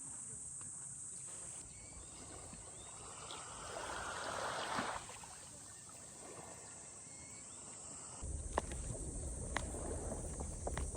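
Steady high-pitched drone of insects in summer, with a brief swell of noise about four seconds in. In the last few seconds a low rumble, as of wind on the microphone, and a few sharp clicks join in.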